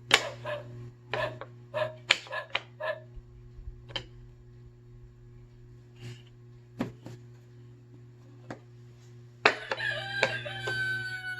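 Rooster crowing, one long call starting about nine and a half seconds in, after a few short clicks and brief sounds early on.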